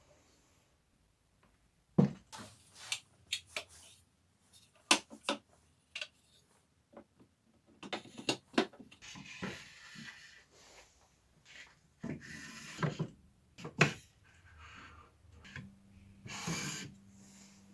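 Scattered clicks and knocks with a few short stretches of rubbing, from parts and tools being handled during workshop assembly. A faint steady hum comes in near the end.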